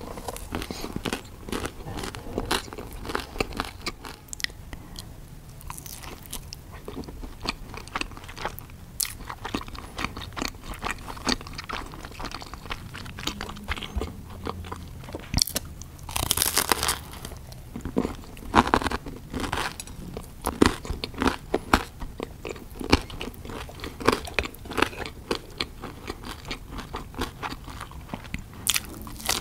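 Close-miked eating: crunchy bites into pizza slices and steady chewing, with a run of louder crunches about halfway through.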